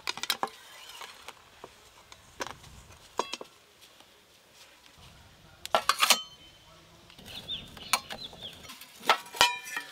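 Steel lids and a tin box clinking against a stainless-steel pot and plate as they are lifted off a steamer with a cloth and set down: a series of sharp metallic clinks, some ringing briefly, loudest around six seconds in and again near the end.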